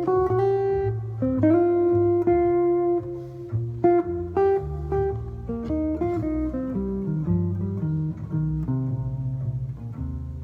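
Solo guitar playing a chord-melody arrangement: plucked melody notes ringing over chords and a walking bass line, moving to quicker, busier notes about halfway through.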